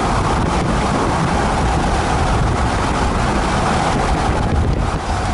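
Steady road noise of a car driving at highway speed: tyre rumble and wind rushing past the car.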